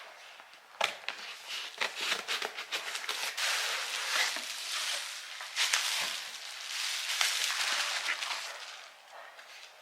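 A parcel being unpacked by hand: packaging crinkling and rustling with many sharp clicks, crackles and scrapes, denser in the middle.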